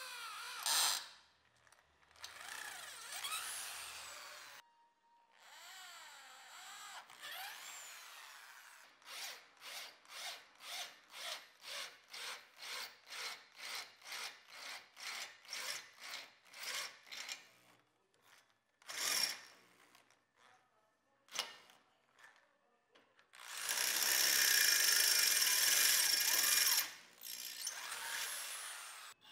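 Electric drill boring through a steel machete blank held in a vise, the bit cutting and scraping through the metal. A run of regular scraping pulses, about two a second, fills the middle, and the loudest, screeching stretch of cutting comes near the end.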